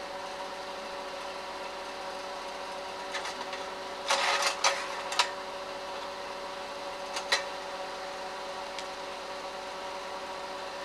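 Slide projector's fan motor humming steadily, with a clatter of clicks about four to five seconds in as a slide is changed, and a couple of single clicks later.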